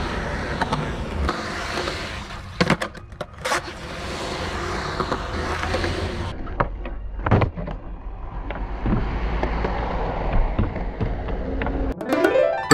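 Skateboard wheels rolling on concrete with a steady grinding rumble. A few sharp clacks come from the board striking the ground, near 2.5, 3.5 and 7 seconds. Music starts just before the end.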